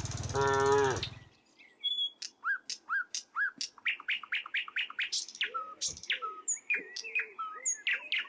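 A cow moos for about a second at the start, a loud, drawn-out call. Then small birds chirp quickly and repeatedly: short notes sweeping down in pitch, several a second.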